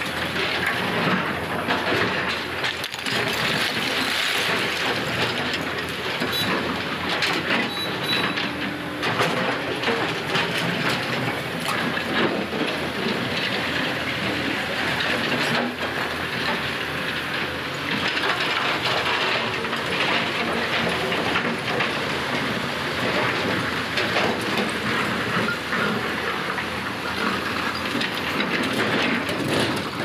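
Heavy diesel engines of a tipper truck and a crawler excavator running steadily, with light rattling and clicks through it.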